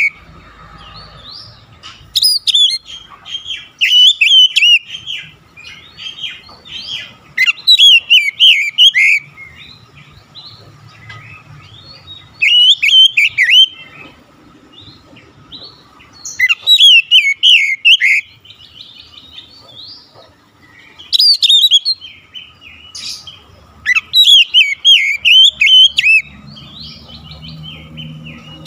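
Caged Oriental magpie-robin (kacer) singing: loud, rich warbled phrases of one to two seconds each, repeated about every four seconds with short pauses between.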